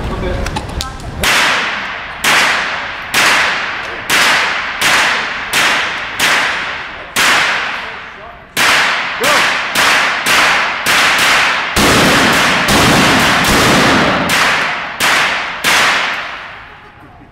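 Shotgun fired in a rapid string of about twenty shots, some in quick clusters. Each blast rings on and decays in the reverberant indoor range.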